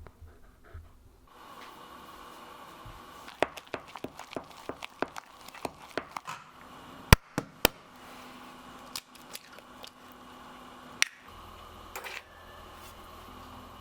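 Kitchen food-prep sounds: a quick, uneven run of sharp clicks and taps for a few seconds, then a handful of louder single knocks, over a faint steady hum.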